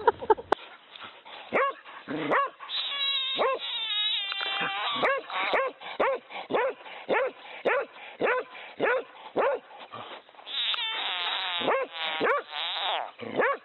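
A dog barking over and over at a frog, about two short barks a second, with two stretches of high, wavering whining in between.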